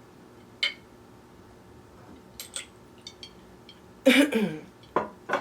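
A few light clinks and clicks, ice in a glass of tea being handled, then about four seconds in a short vocal sound that falls in pitch, and two brief sharp calls just after it.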